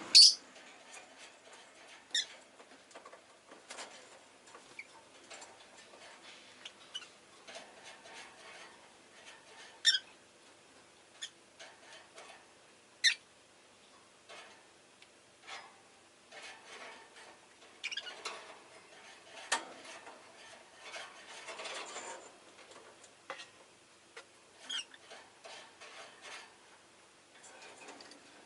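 Rosy-faced lovebird giving short, sharp chirps now and then, the loudest right at the start, with faint rustling and scratching between the calls.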